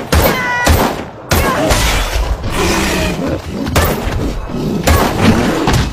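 Movie action sound effects: a run of heavy crashes and impacts, about six in all, over a dense rumble, with a high wavering screech early on.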